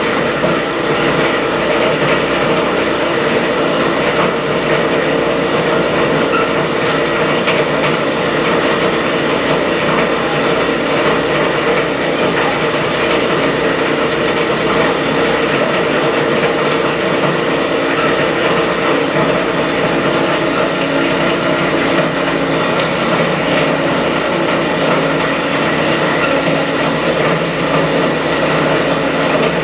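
SEM Model 2-SSD solid-state media disintegrator running steadily, its cutting chamber and dust filtration system going together as USB thumb drives are fed in and shredded. An even, loud mechanical noise with a steady hum.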